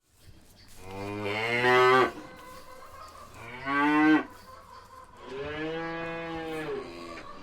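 Cows mooing: three calls, a long one, a short one, then another long one.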